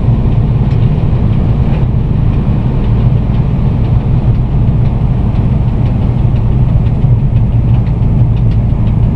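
Steady low rumble inside the cab of a VL11M electric locomotive, with a few faint ticks over it.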